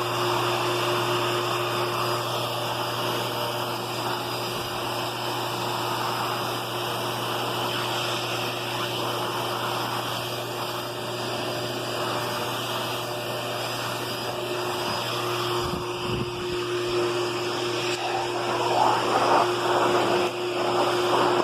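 Vacuum cleaner motor running steadily with a constant hum and whine; about eighteen seconds in, louder, uneven noise rises over it.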